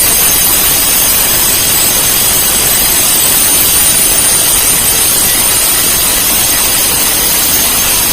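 Electric bell ringing continuously and very loud, a harsh steady clatter. It is the automatic timer's scheduled 10-second alarm going off at its preset time.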